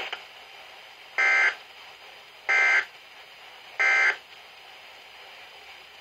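Three short bursts of SAME digital alert data (the two-tone warble of the Specific Area Message Encoding code) from a Weatheradio Canada broadcast, heard through a weather radio's speaker, about 1.3 seconds apart over faint hiss. Each burst is the length of an end-of-message code, marking the close of the preceding bulletin.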